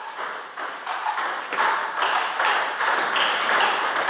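Table tennis rally: the plastic ball clicking sharply off the bats and the table, about two to three strikes a second, with a short ring of hall echo after each.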